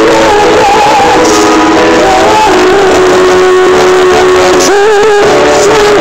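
Live band performing: a woman sings lead through the PA over electric guitar, loud. She holds one long note through the middle, then a wavering note near the end.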